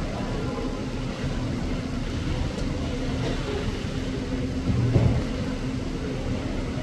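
Steady low mechanical hum with a constant drone, and a single dull thump about five seconds in.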